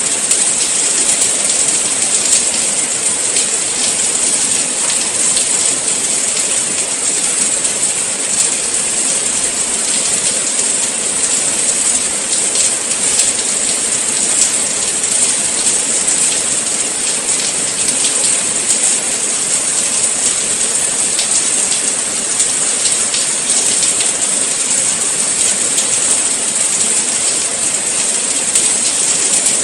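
Steady rain, an even, unbroken hiss strongest in the high range, with many fine drop patters through it.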